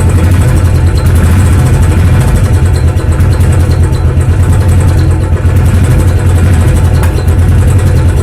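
Royal Enfield Thunderbird's single-cylinder engine idling with a steady, loud, even beat, just after an electric start.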